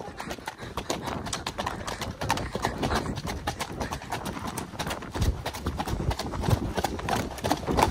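Hooves of ridden horses striking the ground in a quick, continuous run of clip-clops.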